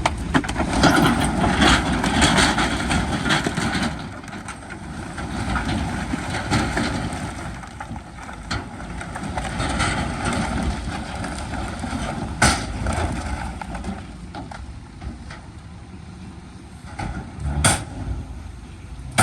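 Heavy diesel earthmoving machinery running, louder for the first few seconds, with a few sharp metallic clanks along the way.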